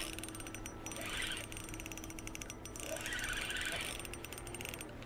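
Fishing reel clicking rapidly in a steady ratchet-like run, swelling louder twice, while a hooked landlocked king salmon is fought on the line.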